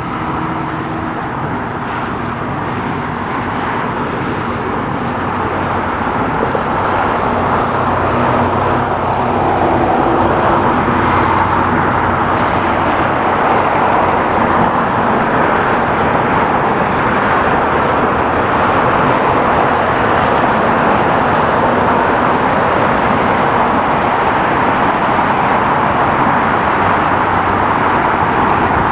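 Jet airliner engine noise: a steady, loud roar that grows over the first ten seconds or so and then holds.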